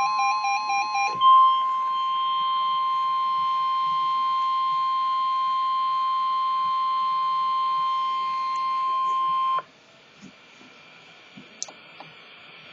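NOAA Weather Radio emergency alert: the end of a warbling SAME digital header burst for about a second, then the steady 1050 Hz warning alarm tone for about eight seconds. The tone cuts off suddenly to faint radio hiss with a few small clicks.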